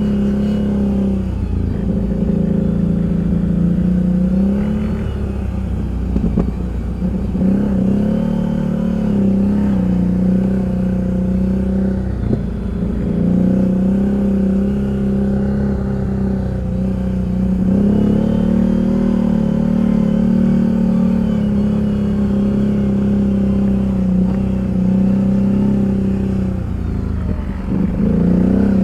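ATV engine running at steady, fairly high revs, with several short dips in pitch where the throttle is eased and picked up again: about a second in, around six and twelve seconds in, and near the end.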